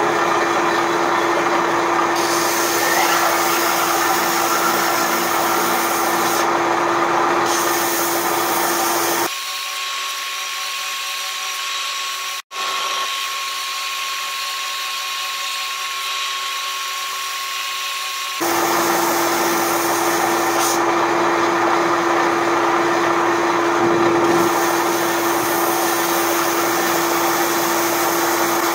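Belt sander running, with a hot-rolled steel plate held flat against the moving abrasive belt, grinding off its hard mill scale: a steady hum and abrasive hiss. Midway the sound thins out and quietens for about nine seconds, with a momentary dropout, then comes back fuller.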